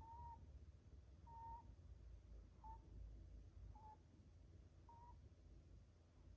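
A sleeping Netherland Dwarf rabbit making faint, short, high squeaks, five of them about a second and a bit apart, at an even pace. They are its sleep noises, which could be snoring, sleep-talking or breathing.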